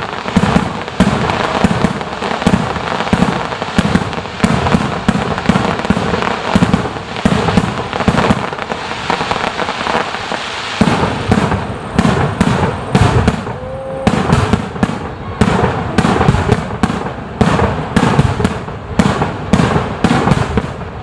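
Fireworks display: a rapid barrage of aerial shells bursting in quick succession, booms overlapping with crackle, with a brief lull about ten seconds in.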